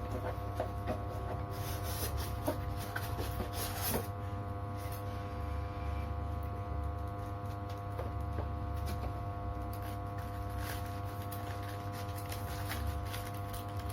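Packaging being handled during unboxing: rustling and scraping of foam and box contents, with scattered light clicks, over a steady electrical hum.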